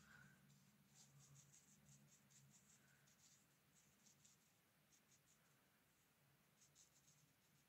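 Very faint strokes of a fine watercolour brush on paper: groups of quick, soft, scratchy strokes over near silence, with a faint steady low hum.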